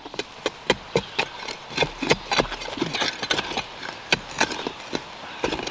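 A hand digging tool repeatedly stabbing and chopping into soil: an irregular run of sharp strikes and scrapes, several a second.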